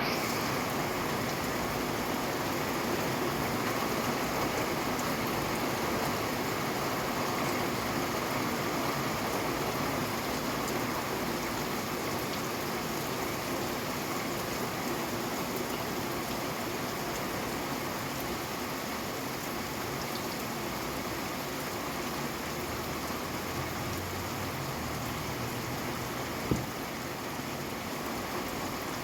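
Steady rain falling, an even unbroken hiss. Near the end, one sharp click stands out above it.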